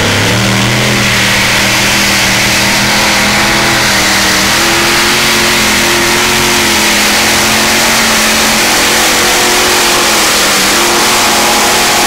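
Multi-engine modified pulling tractor running at full throttle while it drags a weight-transfer sled. The engine note climbs in pitch in the first half-second, then holds loud and steady.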